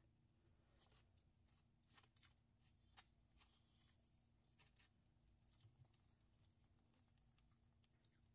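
Near silence with faint, scattered clicks and scrapes of a plastic spoon and fork against a styrofoam food container.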